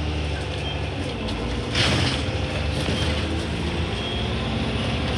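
Bus engine and drivetrain running, heard from inside the passenger saloon of the moving bus, with a short hiss about two seconds in.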